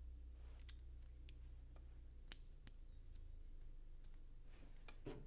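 LEGO plastic pieces clicking as they are handled and pressed together: a scattering of small, sharp, separate clicks, with a quick cluster of them near the end.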